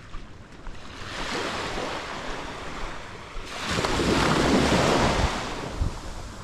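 Small waves breaking and washing up the sand, with two swells of surf: a softer one about a second in and a louder one in the middle that fades away. Light wind rumbles on the microphone.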